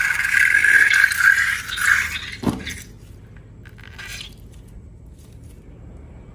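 Slime being scraped and mixed in a container, a steady scraping rustle that stops about three seconds in, with a short falling squeak just before it ends. After that only a few faint clicks.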